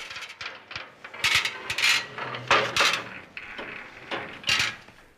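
Wrought-iron gate rattling and its latch clanking as someone works it open, in several bursts of metallic clatter.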